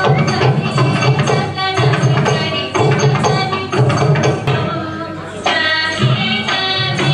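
Indian classical dance music: a regular drum beat under a melody line.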